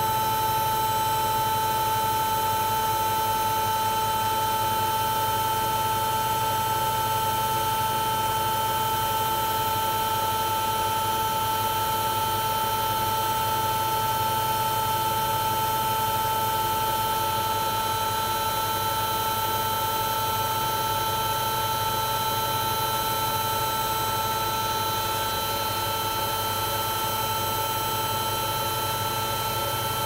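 Hoover Ecologic 1300 washing machine on its spin cycle, the drum turning at a steady high speed below its 1300 rpm top. The motor gives a steady high whine over an even rushing noise and a low hum.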